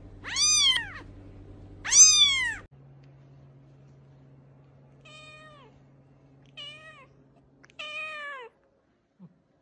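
A kitten meowing twice, high-pitched with a falling end. Then a larger cat gives three quieter, lower meows that drop in pitch.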